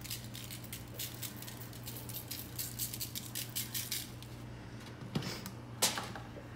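Plastic spice shaker shaken over raw chicken thighs: a quick run of dry rattling shakes lasting about four seconds, then two knocks, the second the loudest, as the shaker is set down on the countertop.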